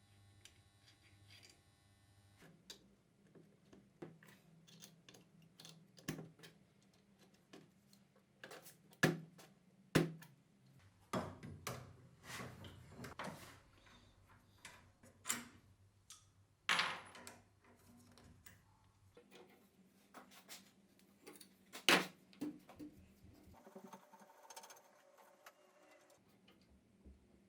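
Small metal parts and hand tools clinking and knocking on a workbench in an irregular string of sharp taps, with a few louder knocks, as an old pneumatic screwdriver is handled and worked on.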